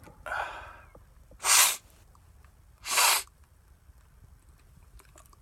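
A man sneezes twice, sharply, about a second and a half apart, after a short breathy sound at the start. The sneezes are brought on by cayenne pepper in his nose.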